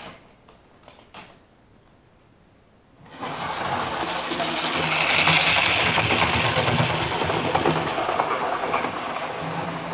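Model train running on the layout: a small electric locomotive motor whirring with wheel and rail noise. It starts about three seconds in, is loudest a couple of seconds later, then runs on steadily.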